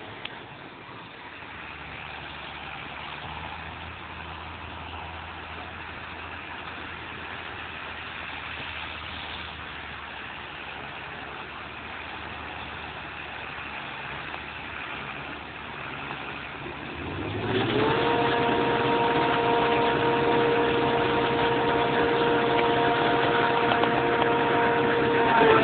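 Claas Jaguar 690 SL self-propelled forage harvester and a tractor working a grass field, engines running steadily. About two-thirds of the way in the sound grows much louder and a steady whine of several tones sets in, sliding up briefly and then holding.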